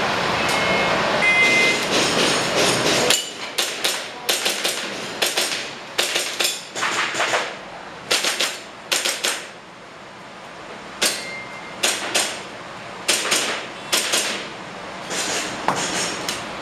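Shot timer's start beep, then airsoft pistol shots fired in quick pairs, sharp cracks through the rest of the stretch with a short pause in the middle.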